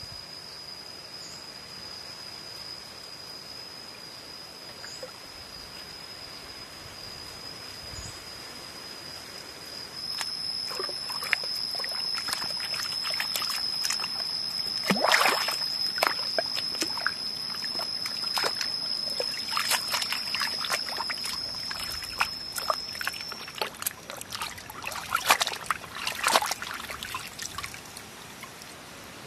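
Water trickling and sloshing from about ten seconds in, with irregular clicks and splashes. A steady high-pitched insect drone runs underneath and stops near the end.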